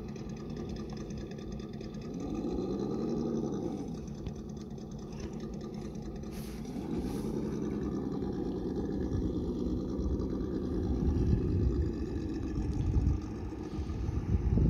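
Traxxas TRX-4 Sport RC crawler's electric motor and gears whining. The pitch rises and falls with the throttle as the truck climbs. In the second half, wind rumbles on the microphone.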